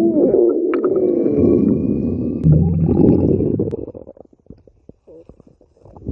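Stomach growling: a loud gurgling rumble that starts suddenly and fades out about four seconds in. It is followed by faint scattered gurgles and a short rumble near the end.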